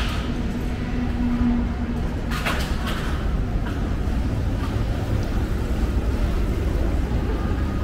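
City street ambience: a steady low rumble of traffic, with a faint hum in the first couple of seconds.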